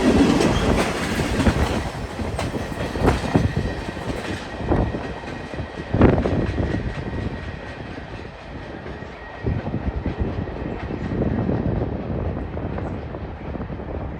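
Freight train cars rolling past, the wheels clacking and knocking irregularly over the rail joints; the sound slowly fades toward the end.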